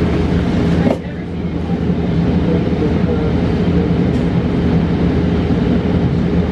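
Cabin noise inside a New Flyer XE40 battery-electric bus on the move: a steady low hum from the electric drivetrain and tyres on the road. A brief knock comes about a second in, after which the noise drops and then builds back up.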